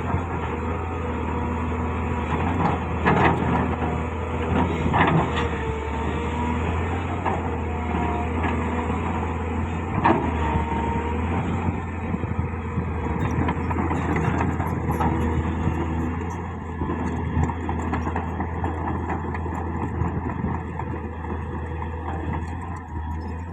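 Caterpillar 966C wheel loader working, its diesel engine running steadily, with loud metallic clanks about three seconds in, again about two seconds later, and once more about ten seconds in.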